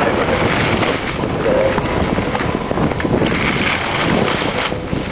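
Wind blowing hard across the microphone in a snowstorm: a loud, steady rushing noise.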